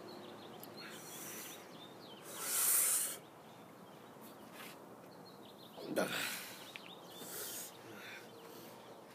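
A man's short, breathy noises of breath and throat, a loud one about two and a half seconds in and another around six seconds in, as he works up to a burp.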